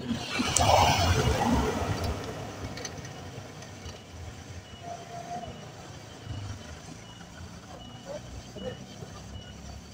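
A car passing close by and driving away down the road: its tyre and engine noise swells quickly, is loudest about a second in, then fades into a low background hum as it recedes.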